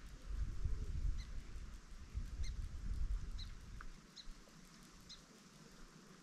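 Short, high chirps repeated about once a second, the call of a small animal. For about the first four seconds a low wind rumble buffets the microphone.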